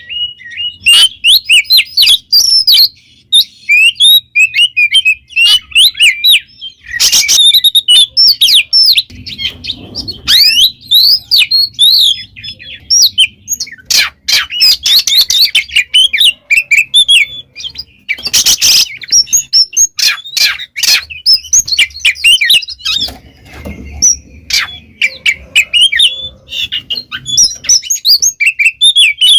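Oriental magpie-robin (kacer) in full, loud song: a fast, unbroken run of varied whistles and chirps, broken by several short harsh, scratchy notes.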